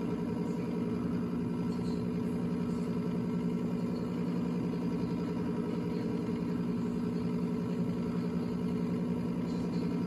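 Coleman mobile home furnace's draft inducer motor running with a steady hum during the igniter warm-up stage of the ignition sequence.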